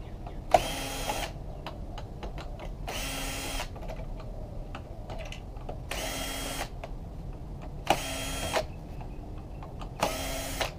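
Cordless drill-driver running in five short bursts of about half a second each, driving out screws, with small clicks and rattles of handling between the bursts.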